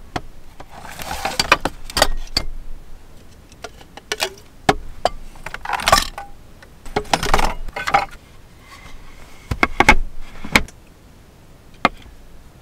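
Gear being rummaged out of a plastic crate: rustling of bags and wrappings with repeated clicks, knocks and clatter as items are lifted out and set down, a clear glass bottle put down on a wooden table near the end.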